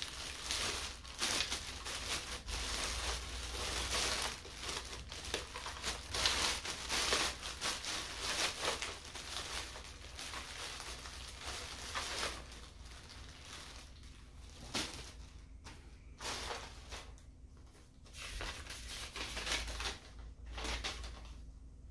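Clear plastic packaging bag crinkling and rustling as it is handled and pulled off an item by hand, busy and continuous for about the first twelve seconds, then in sparser bursts. Near the end a sheet of paper is unfolded and handled.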